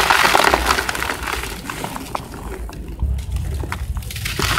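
Dry sand-cement crumbled in the hands and falling through the fingers into a plastic bucket: a gritty hiss of many fine crackles, loudest in the first second and picking up again near the end, over a steady low rumble.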